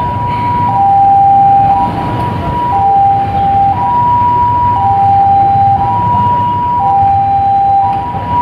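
Two-tone hi-lo vehicle siren, switching between a higher and a lower note about once a second, over the low rumble of vehicles.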